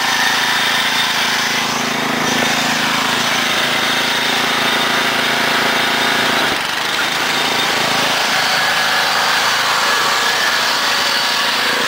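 Small lawn tractor engine running steadily, its sound shifting briefly about two-thirds of the way through.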